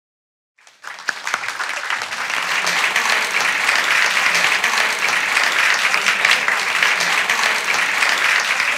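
Audience applauding: many hands clapping together, coming in about a second in, growing over the next second or so and then holding steady.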